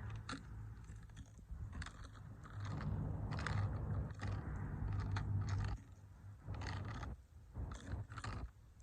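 Toy cars being crushed under combat boots: an irregular run of sharp cracks and crunches over a low rumble.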